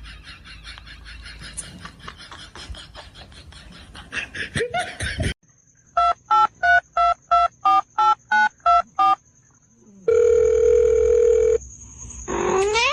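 Touch-tone telephone keypad beeps, about a dozen quick presses, followed by a steady phone tone for about a second and a half. Near the end a cat gives a rising meow. Rapid scratchy clicking fills the first few seconds.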